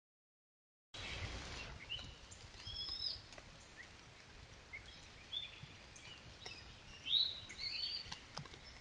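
Wild birds chirping and singing in short, whistled phrases over a faint steady hiss, with a few faint clicks. The sound starts after about a second of silence.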